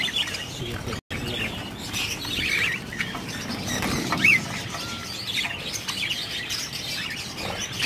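A flock of caged budgerigars chirping and chattering in short, scattered calls, one rising chirp standing out, with occasional wing flapping. The sound drops out briefly about a second in.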